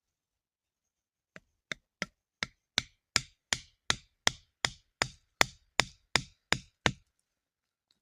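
A steady run of about sixteen sharp knocks, roughly three a second, starting about a second and a half in and getting louder over the first few strokes.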